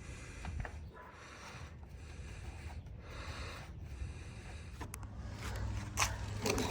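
Soft rubbing noises, repeated about once a second, with a sharp click near the end.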